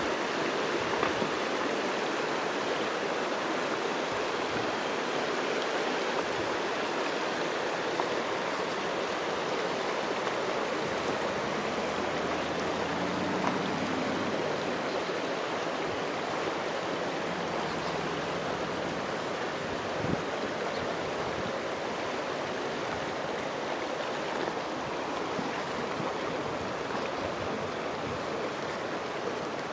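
River water flowing, a steady, even rushing with no change in level.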